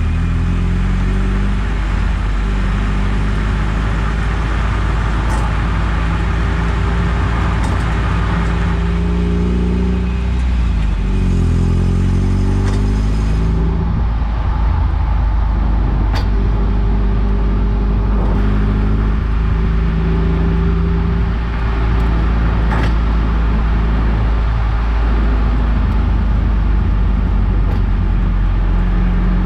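Eunos Roadster on the move: the four-cylinder engine runs under steady, heavy road and wind rumble, its pitch rising and falling as the car changes speed, with a few faint clicks along the way.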